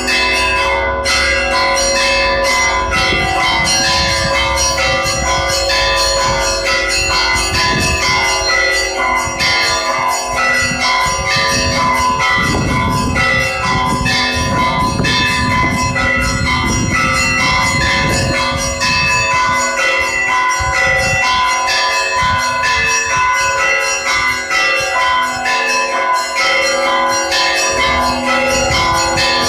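Russian Orthodox church bells ringing a continuous peal, many bells of different pitches struck in quick succession so their tones overlap and ring on together.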